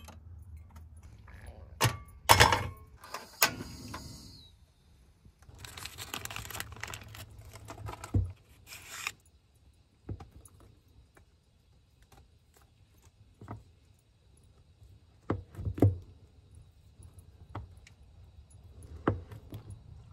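A cast iron skillet clanks against metal S-hooks as it is lifted off a wall rack, with several sharp metallic clinks in the first few seconds. This is followed by handling and rustling, then a chef's knife cutting a block of cheese, with soft knocks of the blade onto a wooden cutting board.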